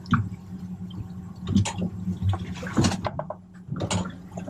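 Water splashing and sloshing in four or five short, irregular bursts over a steady low hum.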